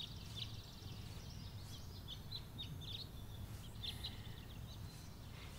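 Faint twittering of small birds, short chirps and quick trills in scattered clusters, over a low steady background hum.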